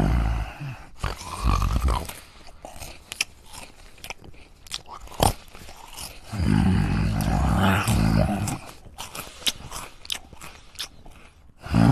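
A man biting and chewing crunchy food right at the microphone, with scattered crunching clicks, broken by low growling roars from his throat: two short ones at the start and a long one from about six to nine seconds in.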